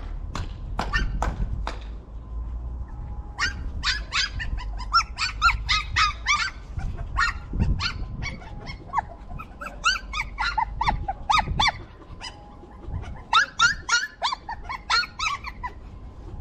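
Puppies whimpering and yipping: bunches of short, high-pitched cries with brief pauses between them.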